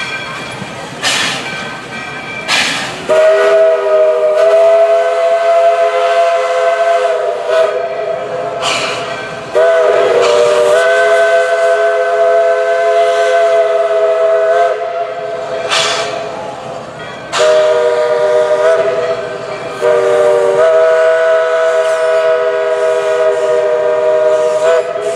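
Locomotive chime whistle blowing long blasts, several notes sounding together in a steady chord, with a brief break in the middle and a longer pause between two groups of blasts.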